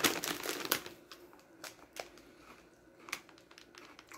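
A crinkly plastic snack bag being handled: a dense burst of crinkling in the first second, then a few scattered crackles.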